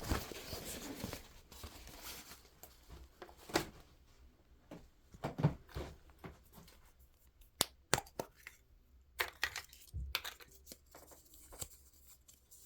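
Wrapping on a mystery ball being torn and crinkled off by hand: a stretch of tearing for the first couple of seconds, then scattered rustles and clicks as it is pulled away.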